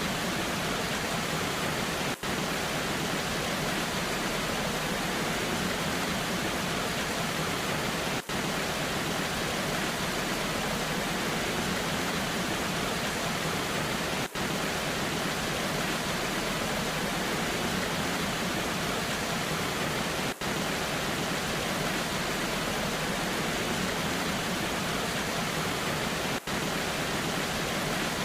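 Waterfall in the rain: a steady, even rush of falling water, broken by a brief dip in level about every six seconds.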